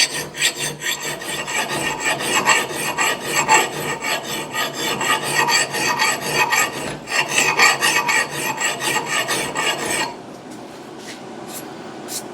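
Hand file rasping across the steel of an axe bit in repeated strokes, the file biting well, sharpening the edge; the strokes stop about ten seconds in, leaving quiet room tone.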